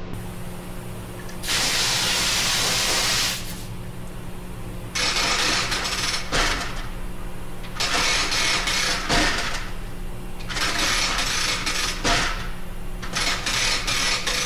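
Compressed-air tool in a repair shop run in five short bursts of about one and a half to two seconds each, a harsh rapid rattling hiss, over a steady low hum.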